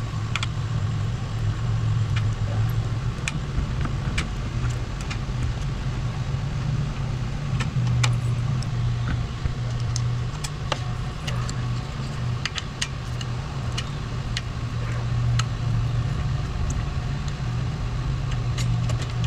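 A steady low machine hum runs throughout, with scattered sharp small metallic clicks and taps from a brake cable being handled and fitted at a bicycle disc-brake caliper.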